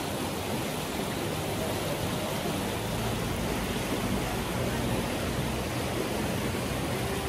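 Shallow river rushing over rocks and small cascades: a steady, even rush of water.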